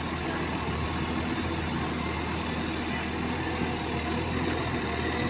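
Mini excavator's diesel engine running steadily.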